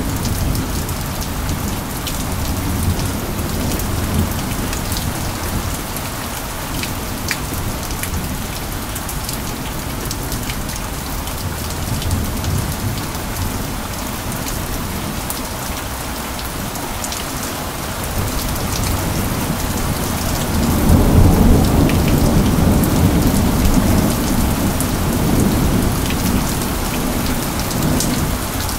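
Steady rain falling, with scattered sharper drop ticks and rolling thunder: a low rumble swells about two-thirds of the way in and slowly fades.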